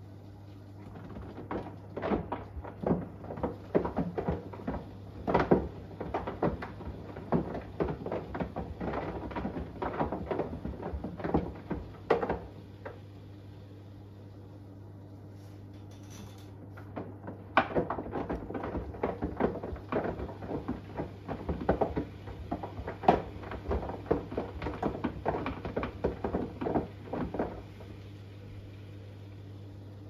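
Washing machine drum tumbling with an iPhone 11 loose inside, the phone knocking and clattering against the drum in two spells of about ten seconds each with a pause between, as in a wash cycle's tumble-and-rest. A steady low hum runs underneath.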